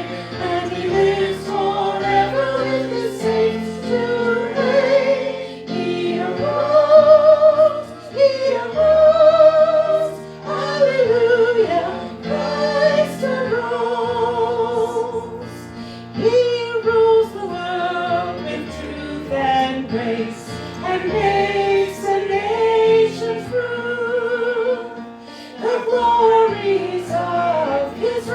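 Church music: a singing voice with vibrato, backed by sustained accompaniment chords that change every second or two.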